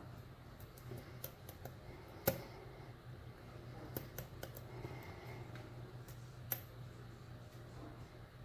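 Faint, scattered metallic clicks and ticks of a lock pick and tension wrench working the pins of a euro profile cylinder padlock. Two sharper clicks stand out, the louder one a little over two seconds in and another about six and a half seconds in.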